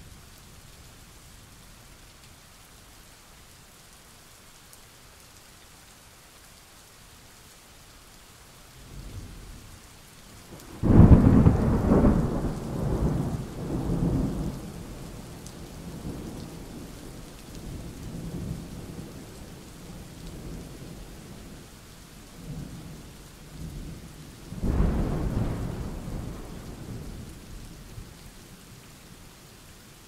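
Thunderstorm with steady rain hissing throughout. About a third of the way in a loud thunderclap breaks suddenly and rumbles on for several seconds, and a second, softer peal of thunder comes near the end.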